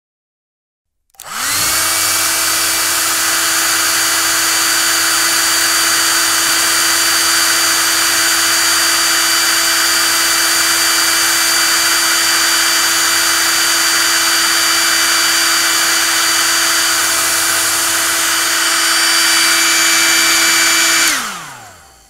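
Hair dryer switched on about a second in, its motor whine rising quickly to a steady pitch under a hiss of rushing air. It runs steadily, then is switched off near the end and the whine falls away as the motor winds down.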